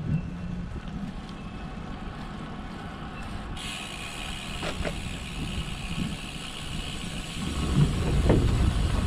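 Wind buffeting a handlebar-mounted camera's microphone, over the rumble of road bike tyres rolling on a paved trail. The sound changes abruptly about three and a half seconds in. Near the end the rumble grows louder, with a few knocks, as the wheels roll onto a wooden bridge deck.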